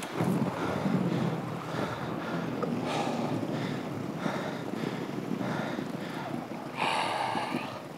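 Inline skate wheels rolling over a wooden plank boardwalk: a steady, rough rumble that swells and eases in a loose rhythm, with wind on the microphone and a brief louder noise about seven seconds in.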